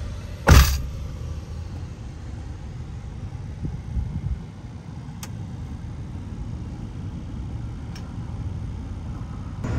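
A car door shuts with one sharp thud about half a second in, then a steady low vehicle rumble, with a softer thump around four seconds in and a couple of faint clicks.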